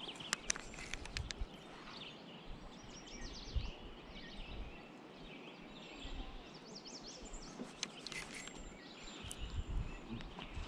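Small birds chirping over a steady rush of river water, with scattered sharp clicks near the start and again near the end.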